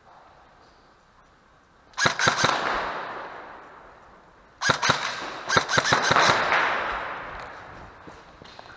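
Airsoft guns firing two quick bursts of shots, about two seconds in and again from near five to six and a half seconds in, each burst echoing and fading slowly in a large hall.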